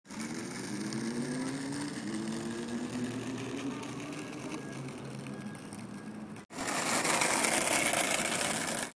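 Skateboard wheels rolling over asphalt, under an engine-like hum that slowly rises in pitch. About six and a half seconds in there is a sudden cut to a louder, rougher rolling hiss of skateboard wheels on concrete.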